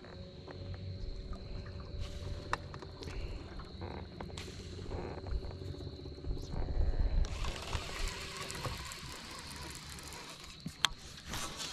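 Electric trolling motor running with a steady high whine and a lower hum over a low rumble, cutting out about seven to eight seconds in, after which a steady hiss takes over. A few sharp clicks sound during it.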